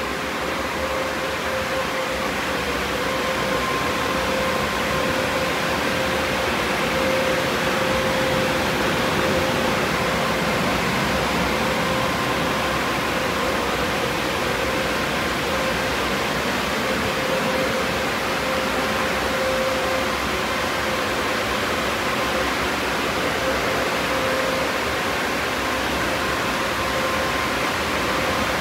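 Mark VII Merchandiser car wash dryer blowers running, side blowers on: a steady rush of air with a constant whine.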